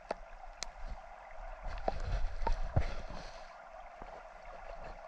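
Creek water running steadily, with a few light knocks and clicks scattered through it.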